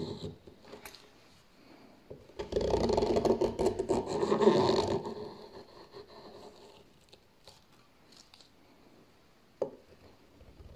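Hand-forged swan neck gouge cutting a curled shaving from a wooden board: one long scraping cut starting about two and a half seconds in and lasting a couple of seconds, then faint scraping and a single sharp tap near the end.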